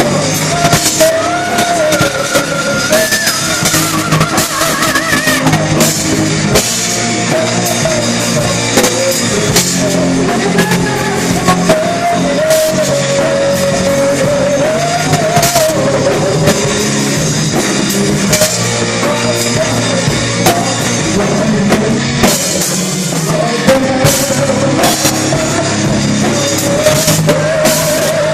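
Rock music with a full drum kit and guitars, a melodic lead line weaving over a steady beat.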